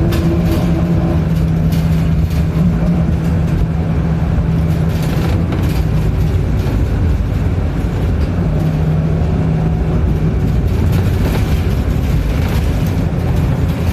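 City bus engine and drivetrain running as the bus drives, heard from inside the passenger cabin: a steady low rumble with a droning tone that fades out about six seconds in and returns briefly at around eight and a half seconds, with light rattles.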